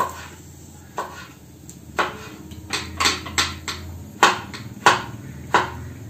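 Kitchen knife chopping tomato and onion on a wooden cutting board: about ten knocks at an uneven pace, a few in quick succession around the middle.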